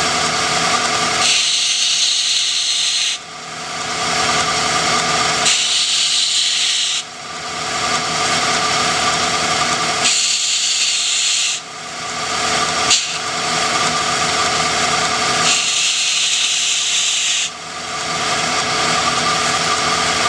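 Belt grinder running with a steady motor hum, while a short brass tube is pressed against the moving abrasive belt four times. Each contact lasts a second or two and brings a hissing, rasping grinding sound.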